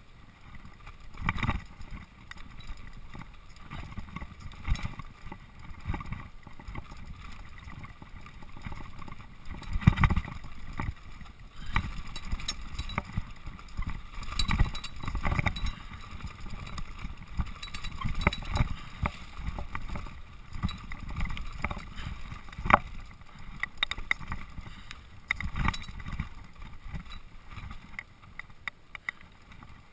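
Mountain bike rolling fast down a dirt singletrack: tyres running over dirt with irregular rattles and knocks from bumps, the sharpest about ten seconds in and again a little past twenty seconds.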